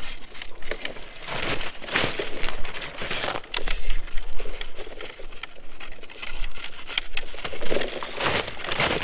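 Snowshoes crunching and scraping on hard, crusted snow as a person shuffles and turns in place, in irregular crunches.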